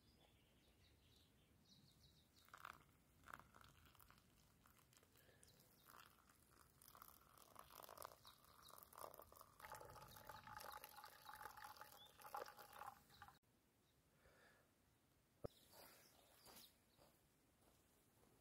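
Faint sound of coffee being poured from a camping mug into a small cup: a steady trickle that cuts off abruptly about two-thirds of the way through. Scattered soft crunches and clicks come before and after it, including one sharp click.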